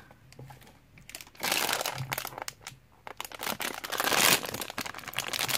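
Foil blind bag crinkling and rustling in the hands as it is opened: one stretch starting about a second and a half in, then a louder one from about three seconds on.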